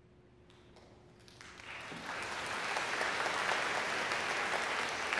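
Audience applause that starts about a second and a half in, swells quickly and then holds steady.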